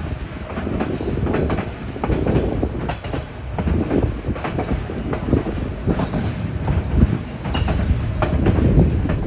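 White Pass & Yukon Route narrow-gauge passenger train running, heard from aboard. A steady loud rumble with many irregular clacks and knocks from the wheels on the rails.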